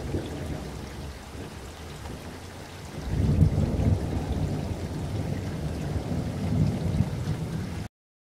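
A low rumbling noise from the intro's sound effect, swelling louder about three seconds in and cutting off suddenly just before the end.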